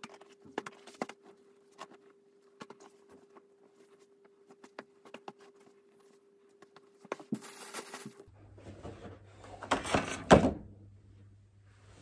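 Clothes being handled and folded: soft fabric rustling and light taps over a faint steady hum. About eight seconds in the hum changes to a lower one, and a louder stretch of rustling and handling follows, with a couple of thumps about ten seconds in.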